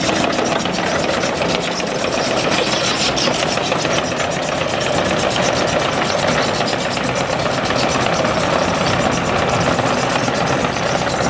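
A machine running steadily with a fast, even clatter.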